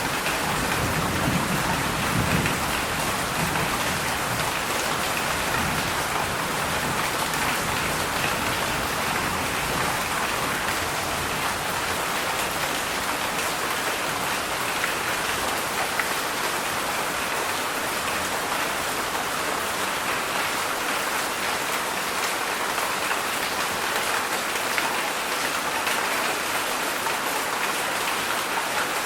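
Heavy summer rain falling in a steady, dense hiss of many drops, with a low rumble in the first few seconds.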